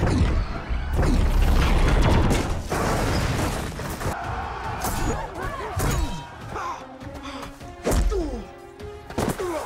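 Film battle soundtrack: music with heavy crashes and thuds at the start and again about 8 s in, and a crowd of warriors yelling as they charge.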